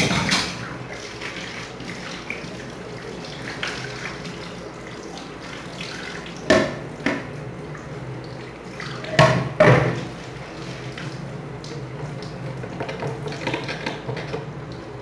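Washing dishes at a kitchen sink: water running from the tap, with several sharp clatters of dishes and utensils, a pair about a third of the way in and a louder pair a little past the middle.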